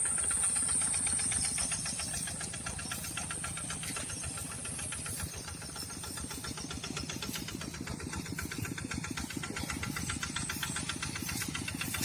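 Tractor diesel engine running with a steady, rapid knocking beat, after repair. A high hiss sounds over it for the first few seconds, then stops.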